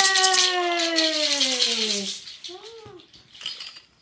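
A hand rattle shaken briskly for about the first half second, under the last sung note of a children's song, held and sliding down in pitch until it fades about two seconds in. A short voice sound follows near three seconds.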